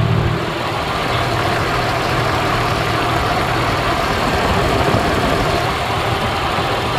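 Audi C5 3.0 V6 running steadily at idle after its fan controller module has been replaced, with a steady rush of noise over the engine.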